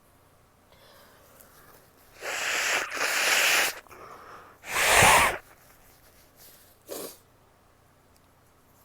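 A woman sneezing several times in a row. The first sneezes come about two seconds in, the loudest about five seconds in, and a short last one near the end.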